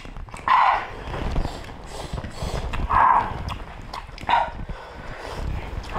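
Close-up eating sounds of people eating by hand: chewing with wet lip-smacking clicks, and three louder smacks about half a second, three seconds and four seconds in.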